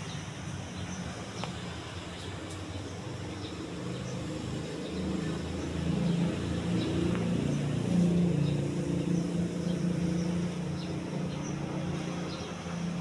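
Atlantic Air Alaska Kiev 42-inch decorative ceiling fan running, its motor giving a low, steady hum that swells a little about halfway through.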